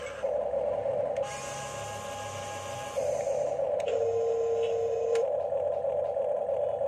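Electric gear motors of a Huina 1569 RC bulldozer whining steadily, the pitch shifting in steps about a second in and again about three seconds in, with a lower tone held for about a second in the middle.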